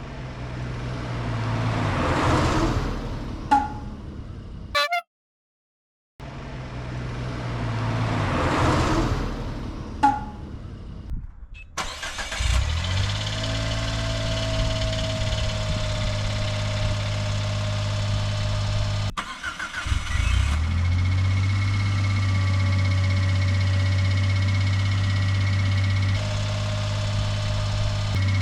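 Suzuki Every Wagon's engine, the one suspected of an abnormal noise, heard in several edited takes. It starts and runs, then settles into a steady idle about twelve seconds in. After a short break near the end it starts again and idles steadily.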